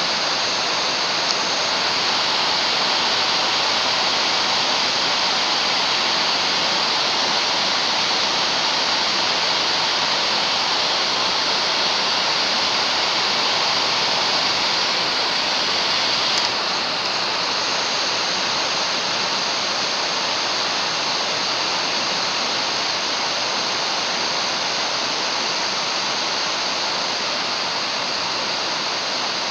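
Hair dryer running steadily, blowing a loud, even rush of air. About halfway through, the sound steps down slightly and stays a little quieter.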